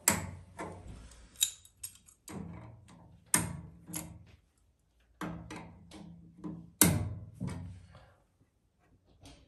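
Pliers working the thermocouple fitting on a gas boiler's control valve as the thermocouple is taken off for checking: a series of sharp metallic clicks and knocks, each ringing briefly, dying away near the end.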